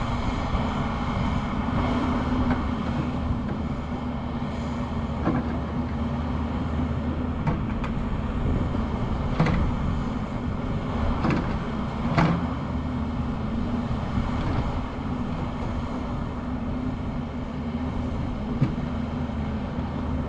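Excavator's diesel engine running steadily under digging work, with a few sharp knocks scattered through the middle, the loudest about halfway.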